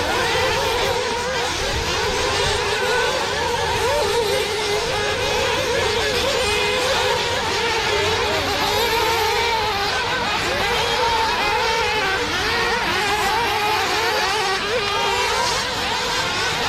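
Several nitro RC buggy engines running at once on the track, their high-pitched buzz rising and falling as the cars accelerate and brake through the corners.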